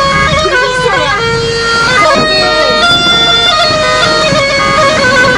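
Music led by a bagpipe melody, with quick stepping notes over a steady drone.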